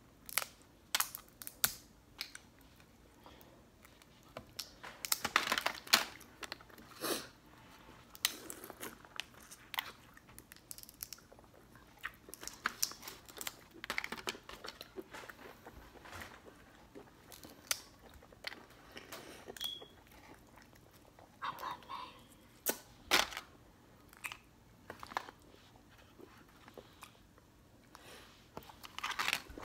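Irregular cracks and crunches of seafood shells being broken and peeled by hand, with chewing.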